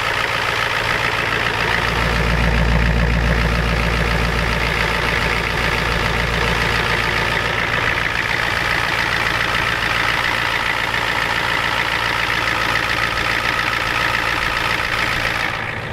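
Ford 7.3 IDI V8 diesel idling with its steady diesel clatter, close over the open engine bay, still warming up after a cold start. The low rumble runs heavier for a few seconds about two seconds in.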